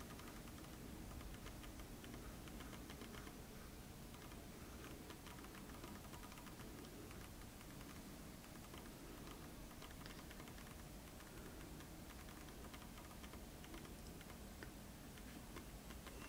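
Faint typing on a computer keyboard: many light key clicks.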